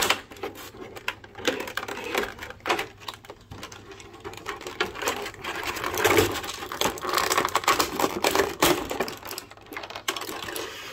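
Plastic action-figure packaging crackling and clicking as the figure is worked out of its tray, in a dense, irregular run of clicks and rustles.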